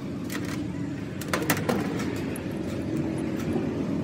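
Sharp metallic clicks and clinks of hand tools being handled on a steel bench: a tap wrench, a thread tap and bolts. There are two near the start and a quick run of clinks about a second and a half in, over a steady low background rumble.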